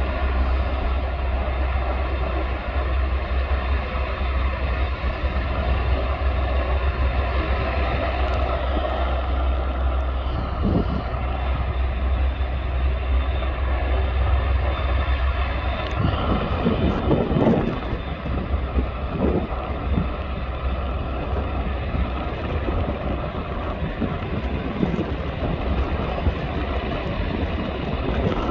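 AgustaWestland Merlin 101 helicopter's three turboshaft engines running: a steady whine made of several high tones over a constant low rumble, with a few brief low swells about halfway through.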